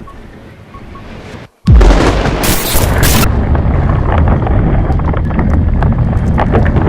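A few faint short beeps, then a moment of dead silence and a sudden loud explosion about one and a half seconds in, followed by a sustained rumble with crackling: a film explosion effect for the bunker being hit.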